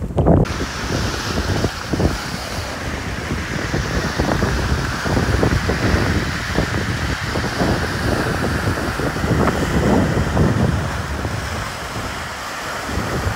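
Wind rushing and buffeting over an action camera's microphone on a moving bicycle: a steady rush with irregular low gusts, setting in abruptly about half a second in.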